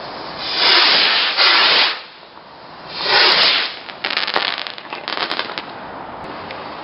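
Fireworks launching with loud whooshing hisses, two back to back in the first two seconds and another about three seconds in, followed by a quick run of crackling pops.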